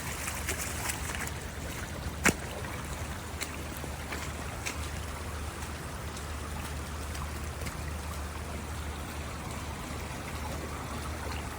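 Floodwater rushing steadily, with one sharp click a little over two seconds in.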